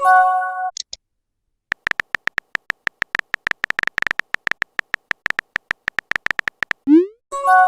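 Phone chat-app sound effects: a short multi-note message chime, then rapid keyboard-tap clicks, several a second, for about five seconds. Near the end a quick rising swoop and a second chime.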